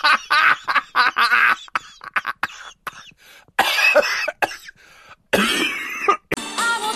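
A person's voice making rasping, cough-like growls in several short bursts, with a few sharp clicks in the gaps between them.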